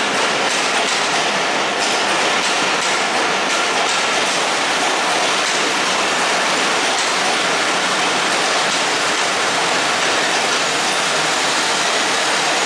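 Broad-gauge passenger coaches of the Rupsha Express rolling past alongside the platform: a steady rush of wheels running on the rails.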